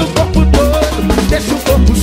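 Upbeat Brazilian pagode baiano dance music: a drum groove, long deep bass notes and a sliding melodic line over the top.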